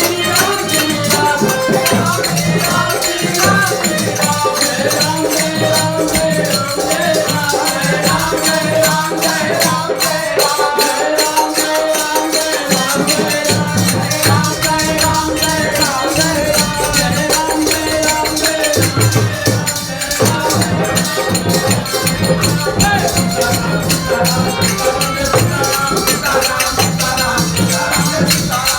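Hindu devotional kirtan: a melody sung over jingling hand percussion that keeps a steady, fast beat.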